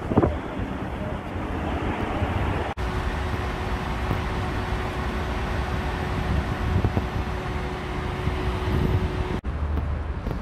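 Road traffic: cars passing on a busy city street, with wind buffeting the phone's microphone.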